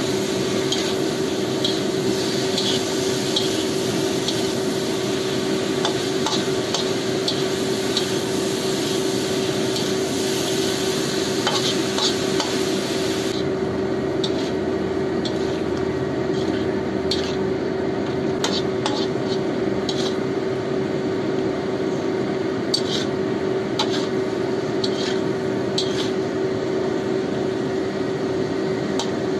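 Metal spatula stirring and scraping sliced bamboo shoots and vegetables around a non-stick wok, with light sizzling of the frying and frequent small clicks of the spatula against the pan, over a steady low hum.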